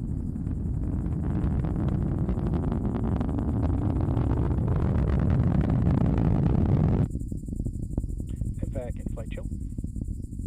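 Falcon 9 first stage's nine Merlin engines in ascent: a loud, steady low rumble with rapid crackling that grows slightly louder, then cuts off abruptly about seven seconds in to a quieter rumble.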